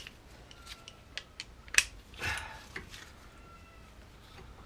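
Scattered metallic clicks and clinks of a ratchet and socket being fitted to a brake disc retaining screw, with one sharp click about two seconds in.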